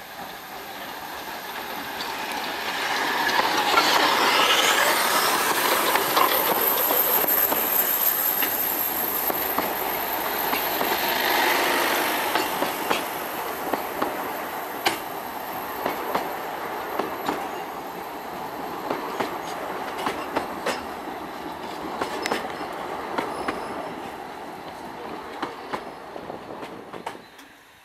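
NGG16 Garratt steam locomotive No. 87 and its narrow-gauge coaches running into a station and passing close by: loud train noise that swells to a peak about four to twelve seconds in, with a high wheel squeal, then the coaches' wheels clicking over rail joints as the train slows. It cuts off suddenly near the end.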